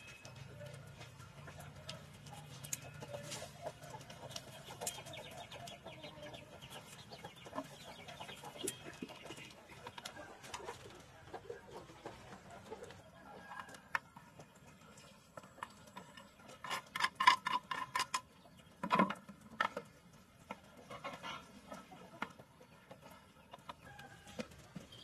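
Chopsticks and utensils clicking and tapping against a plate as a shredded salad is tossed, with a quick run of louder clicks about two-thirds of the way in and a single knock just after. Birds call faintly in the background.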